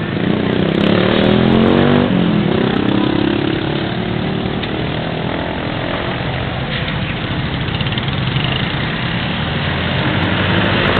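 Motorcycle engine passing close by, its pitch sliding over the first couple of seconds, then settling into steady traffic noise of engines idling and running.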